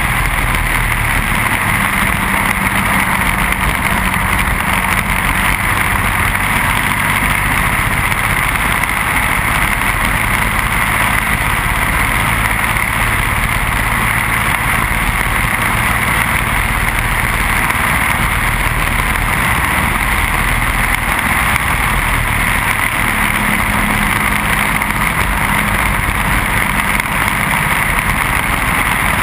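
Briggs & Stratton Animal single-cylinder four-stroke kart engine running hard at racing speed, a steady unbroken engine note heard onboard.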